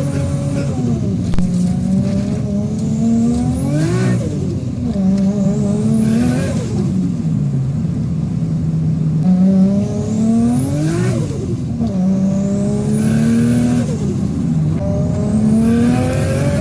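Turbocharged RB25DET straight-six in a built Nissan R33 Skyline pulling hard under boost about four times, a high turbo whistle rising with the revs. At each lift-off the pitch drops sharply with a short rush of turbo flutter venting through the screamer pipe.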